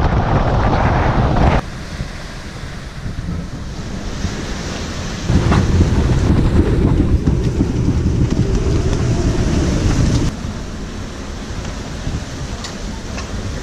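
Strong wind buffeting the microphone over rushing, breaking water around a sailing yacht's hull in about 35 knots of wind. The sound changes abruptly about one and a half, five and ten seconds in.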